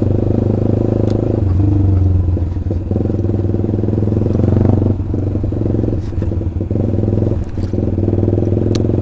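Honda CBR150R's single-cylinder four-stroke engine running steadily through a loud Austin Racing aftermarket racing exhaust, with brief dips in level around five and seven seconds in.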